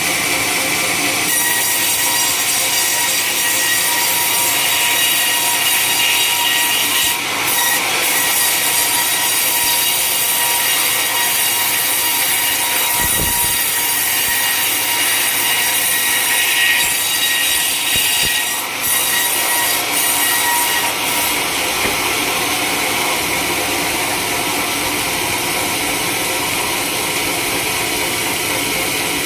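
Sawmill blade cutting lengthwise through a coconut palm log: a steady, loud, high-pitched cutting noise that gets harsher about a second in, with a few brief dips.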